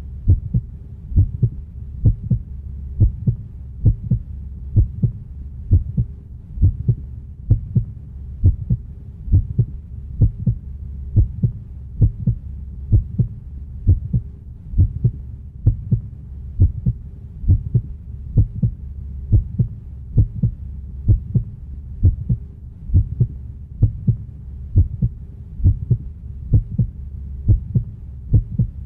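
Heartbeat sound effect: slow, steady double thumps about once a second over a low steady drone.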